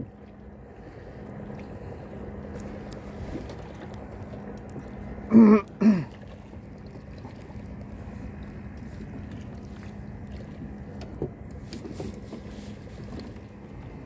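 Fishing boat's engine running with a steady hum, over a wash of water and wind noise. About five and a half seconds in, a short loud voice call comes twice.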